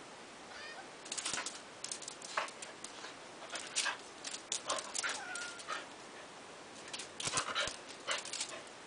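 Dog whimpering and giving short, sharp yips in quick bursts, spread over several seconds with a couple of brief whines among them.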